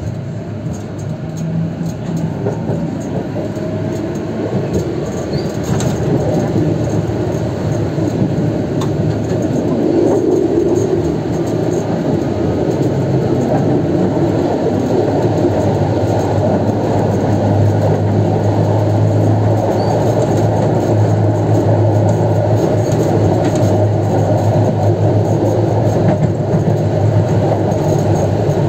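Konstal 105Na tram set running on track: a steady low hum with rumbling wheel and rail noise, growing louder over the first ten seconds or so and then holding steady.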